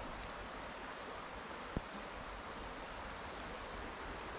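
A river flowing: a steady hiss of rushing water. A single sharp tap cuts through it a little under two seconds in.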